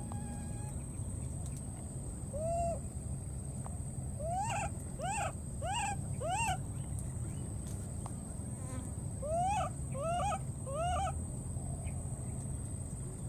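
Baby macaque crying: short cries, each rising and falling in pitch, first one alone, then a run of four, then three more.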